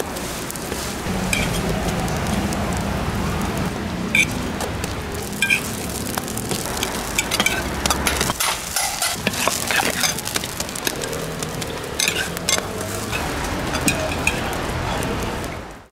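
Sorghum hotteok frying on an oiled flat steel griddle, sizzling steadily, with frequent sharp metallic clinks as stainless steel dome lids are set down on the griddle and picked up, coming thickest in the middle.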